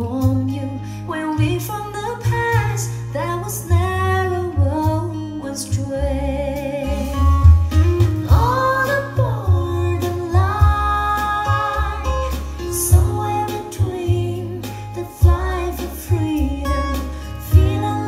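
A song played back through a pair of Yamaha NS-153 three-way floorstanding speakers: a sung vocal with held, gliding notes over guitar and a heavy bass line.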